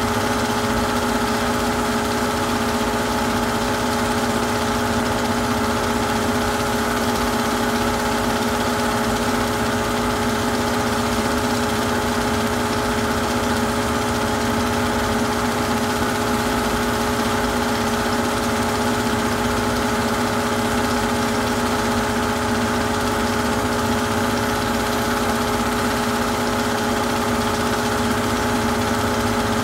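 Super 8 film projector running: a steady motor hum with a few fixed tones that never change in pitch or level.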